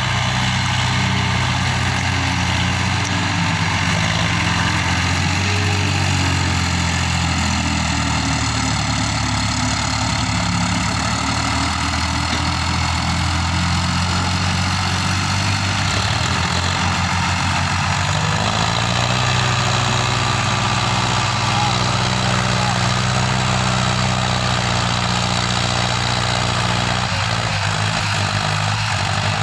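Tractor diesel engines running steadily as a New Holland tractor and a Hindustan tractor pull a trailer heavily loaded with sugarcane across a soft field. The engine note shifts slightly about two-thirds of the way through.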